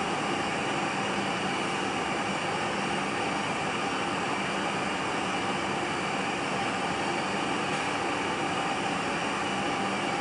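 Steady, even hiss with a faint low hum.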